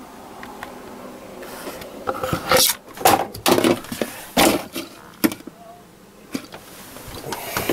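A run of sharp knocks and clatters over a couple of seconds, starting about two seconds in, as a handheld K2 EMF meter is fumbled and dropped onto a wooden floor, with rubbing from the camera being handled.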